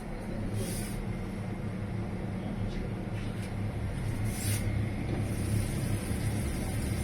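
A steady low hum, with two brief faint hissing rustles about a second in and again past the middle.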